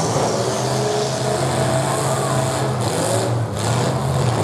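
Engines of several full-size demolition derby cars running at once, a steady low drone with some revving over it.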